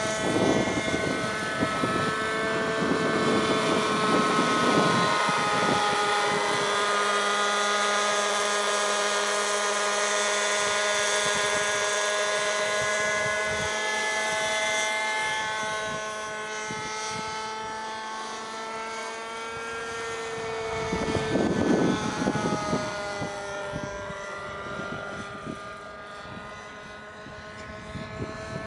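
Radio-controlled scale model helicopter in flight: a steady engine and rotor whine that slowly rises and falls in pitch as it manoeuvres. It is loudest in the first few seconds and again about 21 seconds in, with a low rushing noise each time.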